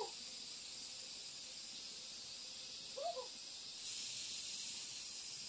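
Steady high-pitched insect chorus, growing louder about four seconds in, with two short two-note calls, likely a bird, about three seconds apart.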